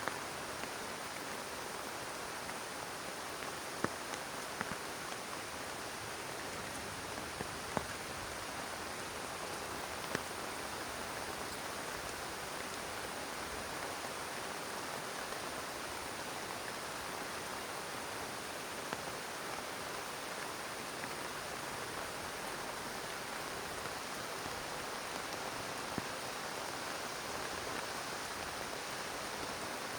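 Heavy rain falling steadily, with a scattering of sharper single drop hits standing out now and then.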